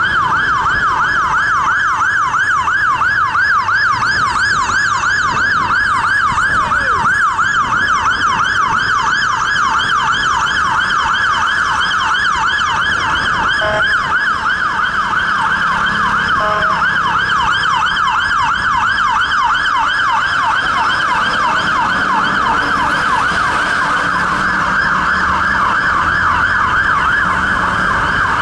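Fire engine sirens sounding a fast yelp: a rapid rising and falling wail repeating several times a second, steady and unbroken throughout.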